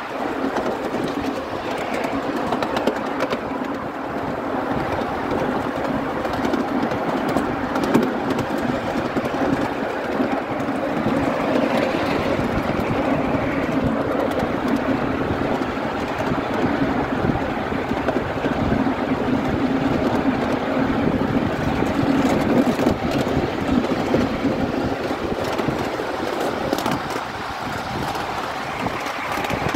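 7¼-inch gauge Black Five miniature locomotive pulling its riding cars along the track: a steady rolling rumble of the wheels on the rails.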